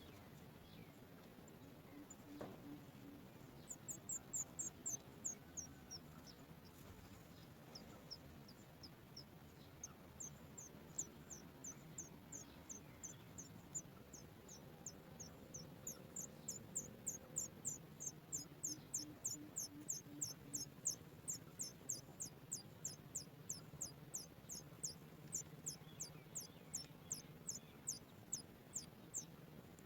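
Sooty chat nestlings calling: thin, very high-pitched chirps, each dropping in pitch, starting a few seconds in and settling into a steady run of about two a second.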